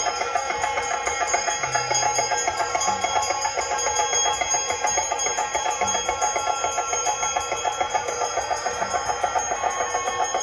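Ritual hand bells ringing continuously in a fast, even pulse of many bright, overlapping ringing tones.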